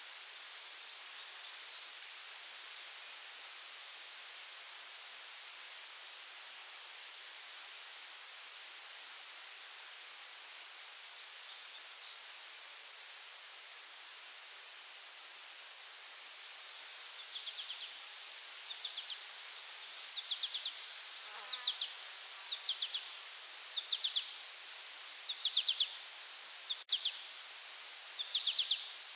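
Forest insect chorus: a steady high-pitched drone with rapid pulsed chirping like crickets over a soft hiss. From a little past halfway, short high chirps join in, repeated about once a second.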